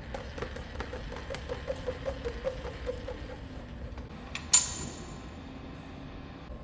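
Rapid, even clicking of metal workshop tooling, about five clicks a second for some three seconds, like a ratchet or handwheel being turned, then a single sharp metallic clink that rings briefly.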